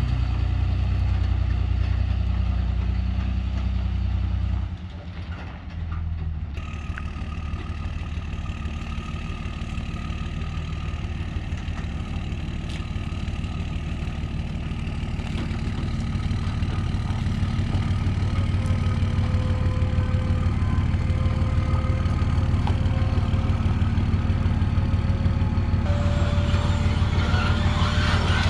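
Pickup truck's diesel engine running steadily as it hauls and backs a dump trailer. Later a steady whine joins it, from the dump trailer's hydraulic lift raising the bed.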